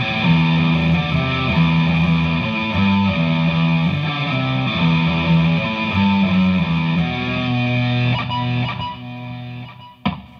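Electric guitar, a Vintage V100 Les Paul, played through a DigiTech GNX3 multi-effects pedal on a custom distortion patch into a Hughes & Kettner Attax amp: a riff of sustained, overdriven notes that dies away near the end.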